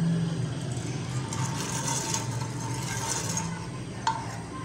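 Ghee sizzling on a hot tawa as it is spooned on and spread, over a low steady hum. A single metal clink of the spoon against the tawa comes about four seconds in.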